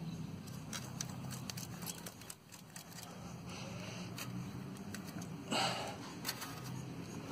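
Perforated metal sand scoop digging and scraping through dry sand, with scattered ticks of grains and two short scraping rushes, the louder one about three-quarters of the way through. A low steady hum runs underneath.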